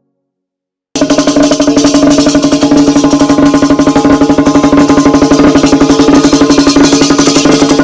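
Music with a fast, steady beat starts abruptly about a second in, after a moment of silence.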